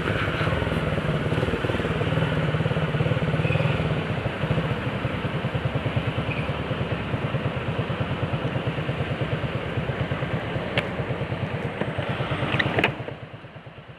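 Single-cylinder engine of a Honda CG 125 Fan motorcycle running while riding. It is loudest and steadiest for the first few seconds, then settles into a fast, even low pulsing, and near the end the level drops off sharply as the engine eases off.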